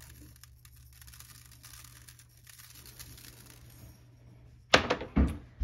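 Everything bagel seasoning shaken from its container and sprinkled over a baking sheet of pigs in a blanket: a faint, crackly patter of fine grains. Near the end come two loud, sharp knocks about half a second apart.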